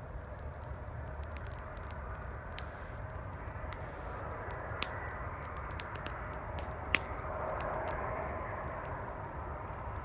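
Campfire crackling with scattered sharp pops, the loudest about seven seconds in, over a steady rumble of highway traffic that rises briefly soon after.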